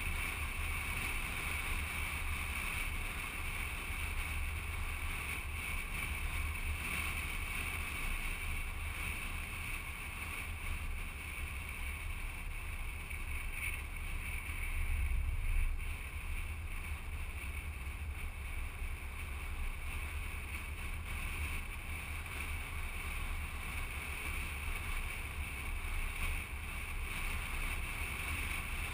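Steady wind rush and low road rumble of a moving vehicle, picked up by a camera mounted on its outside, with a brief swell about halfway through.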